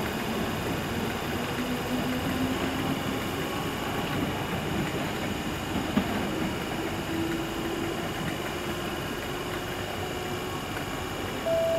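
Merseyrail electric multiple unit running at the station: a steady rumble with faint motor tones that shift in pitch. Near the end a two-note station chime sounds, stepping from a higher note to a lower one.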